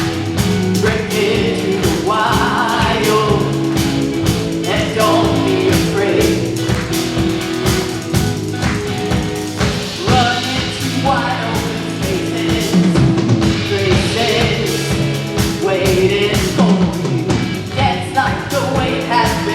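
Live worship band playing a song with a drum kit keeping a steady beat and voices singing over it.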